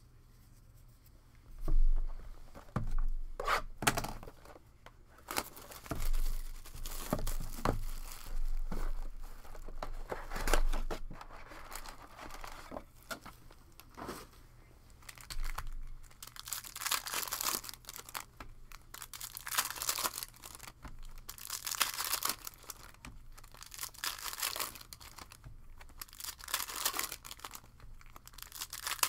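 Plastic wrapping of a sealed trading-card pack being torn open and crinkled by hand, in repeated rustling bursts that grow louder in the second half. A few sharp knocks and taps from handling come in the first few seconds.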